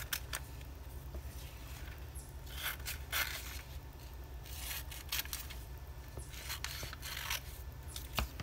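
Scissors cutting glossy catalog paper: short runs of crisp snips with pauses between, over a steady low hum.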